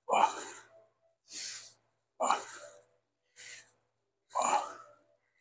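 A person breathing heavily and rhythmically: a loud, forceful exhale about every two seconds, each followed by a quieter inhale.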